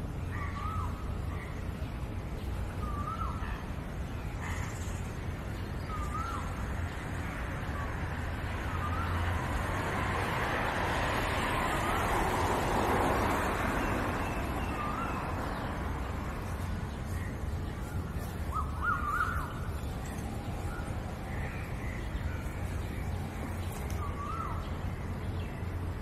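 A bird giving short calls, one every few seconds, with a longer gap after the middle. Under them runs a steady low rumble, and a rush of noise swells up and fades away around the middle.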